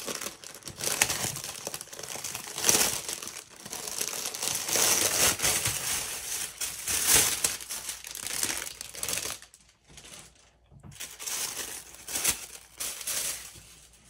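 Clear plastic packaging and white tissue paper crinkling and rustling as a leather planner binder is unwrapped by hand. The rustling comes in irregular surges, with a brief lull about two-thirds of the way through.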